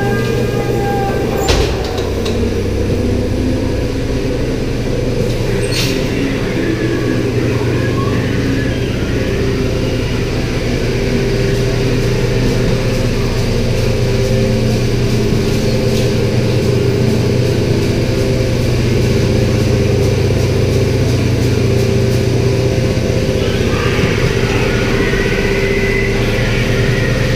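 Dark ride car running along its track: a steady low mechanical hum, with a sharp knock about a second and a half in and another a few seconds later.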